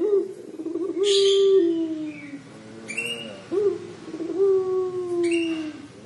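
Puter pelung, a caged ringneck dove, cooing in the drawn-out 'crying' (menangis) style: low coos that swoop up and down, with two long, slowly falling notes about a second in and about four and a half seconds in.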